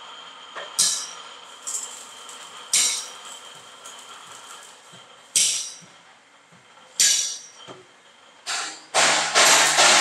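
Sharp metallic strikes on a steel concrete mixer drum, four loud ones and a few lighter ones spread a second or two apart, each ringing briefly, over the faint whine of an angle grinder. About nine seconds in, the angle grinder bites into the steel and steady grinding takes over.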